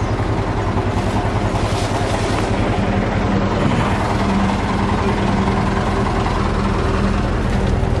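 Bus engine idling steadily close by.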